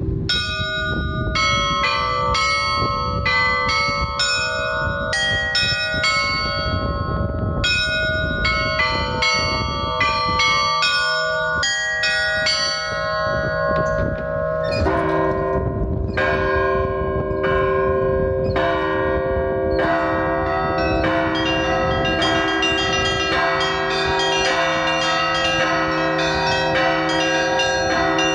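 Russian Orthodox church bells ringing in a festive peal. The small high bells are struck quickly and repeatedly in a running pattern. About halfway through, a deep bell joins; its hum carries on under a denser, fuller peal.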